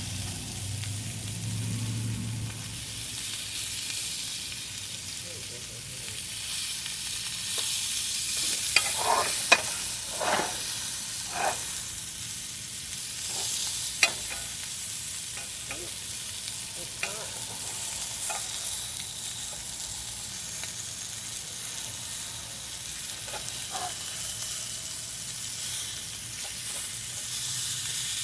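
Beef neck bones sizzling in a hot pan, a steady hiss. A few sharp clinks and scrapes of a utensil against the pan come between about 8 and 14 seconds in, with a couple more later. The pan is hot enough to be starting to smoke.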